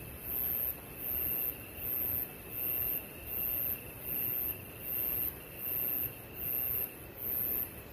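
Insects calling: one chirps in very high, even pulses a little faster than once a second, over the steady high trill of another.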